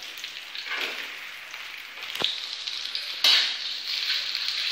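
Fried rice frying in a wok: a steady sizzle as cooked white rice goes in on top of the tempe and vegetables, with a sharp click a little over two seconds in and the sizzle growing louder from about three seconds in as the metal spatula works the pan.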